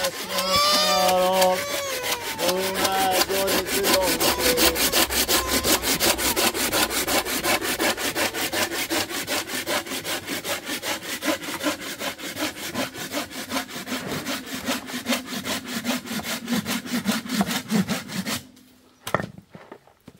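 Hand saw cutting through a dry, weathered tree branch in fast, even back-and-forth strokes. The sawing stops near the end, followed by a couple of short knocks.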